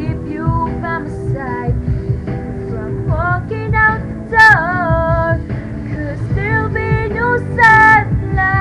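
A woman singing a pop ballad cover over a backing track, with long held notes near the middle and near the end.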